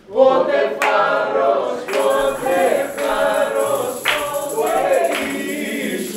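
Several voices singing together like a choir, starting suddenly after a short hush and going on in phrases about a second long.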